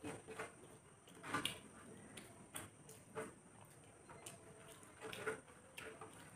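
Eating by hand: fingers picking at and mixing food on a metal tray, with chewing, heard as scattered soft clicks and squishes. The loudest comes about a second and a half in.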